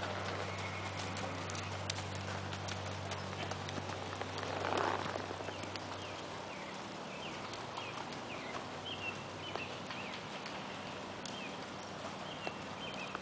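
Horse hoofbeats at a canter on a sand arena: an uneven scatter of soft thuds and clicks. A brief rush of noise comes about five seconds in.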